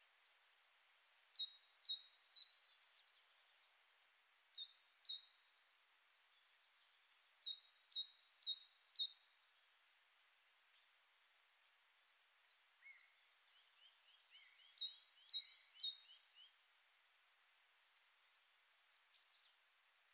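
A small songbird singing: four quick runs of high, descending notes a few seconds apart, with softer chirps between.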